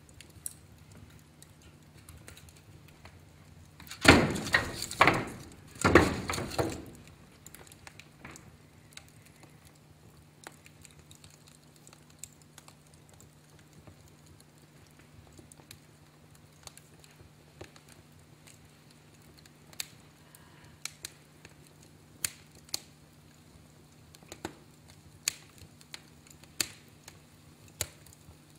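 Fire in a fireplace crackling, with sharp pops scattered irregularly throughout and a louder spell of dense crackling about four to seven seconds in.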